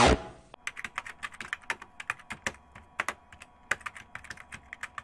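A loud logo sting cuts off right at the start. Then comes a typing sound effect: quick, irregular keyboard key clicks, several a second, as on-screen text is typed out.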